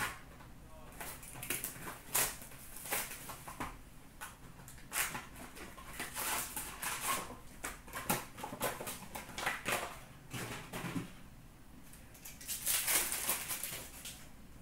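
Hockey trading cards handled and flipped through by hand: a run of quick clicks and papery rustles, with a longer rustle near the end.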